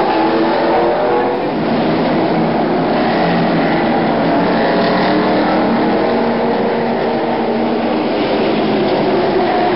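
Several stock car V8 engines running at once, heard as a loud, steady drone of overlapping engine notes that drift slowly up and down in pitch.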